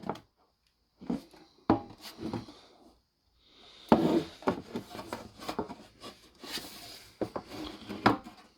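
A collector's knife tin and its packing being opened and handled: a string of sharp clicks and knocks mixed with scraping and rustling, with a short pause about a third of the way in.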